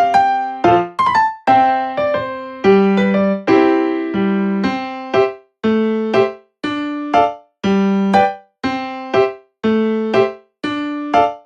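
Background music on a keyboard: a slow run of struck notes and chords, each ringing out and fading, sometimes dying away entirely before the next begins.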